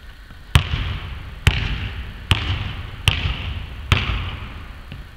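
Basketball dribbled on a hardwood court: five bounces a little under a second apart, each one echoing through a large empty hall.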